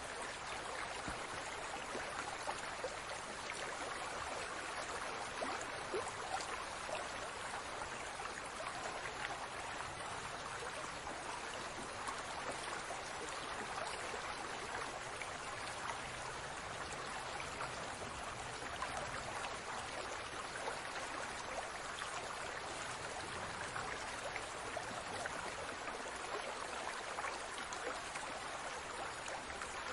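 Aquarium water bubbling and trickling steadily, with many small bubbles popping.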